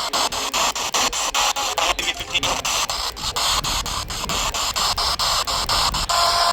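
Radio static hiss from a weak broadcast signal, chopped by quick regular dropouts several times a second.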